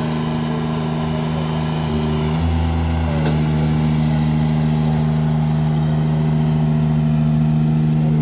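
Engine and hydraulic drive of a Nifty trailer-mounted boom lift running steadily while the boom raises the basket. The hum shifts slightly in tone between two and three seconds in.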